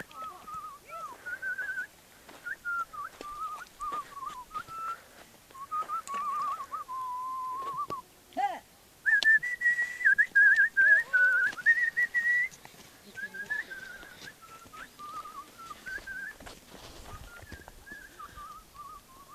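A person whistling a wavering tune in short melodic phrases, loudest and highest between about nine and twelve seconds in.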